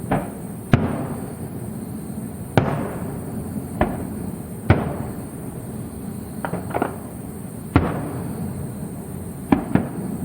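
Fireworks display: aerial shells bursting in about ten sharp bangs at uneven intervals, some in quick pairs and triplets, each trailing off in an echo.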